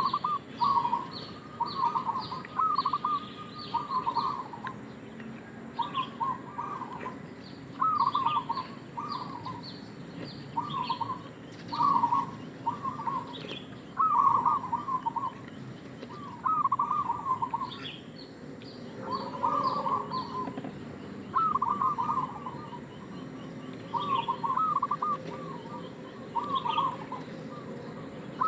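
Zebra dove (perkutut) cooing: short, rapid, trilling coo phrases, repeated every second or two, with thin high chirps between them.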